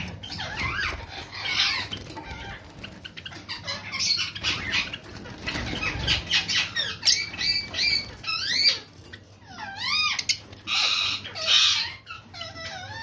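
Caged Java sparrows and a lovebird calling: a busy run of quick chirps and looping, up-and-down whistled calls, with two louder, raspy calls about eleven seconds in.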